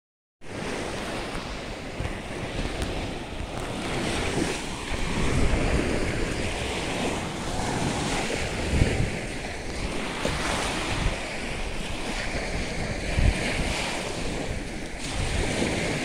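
Small waves washing onto a sandy shore, with wind gusting on the microphone.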